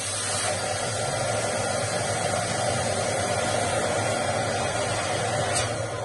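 Electric balloon pump running steadily, blowing air into a foil balloon, with a click near the end.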